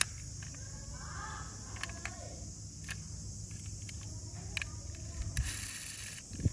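A die-cast metal toy SUV handled in the fingers: a sharp click of a door snapping shut at the start, then small clicks and taps as it is turned over, and another sharp click near the end. A steady low hum and hiss lies underneath.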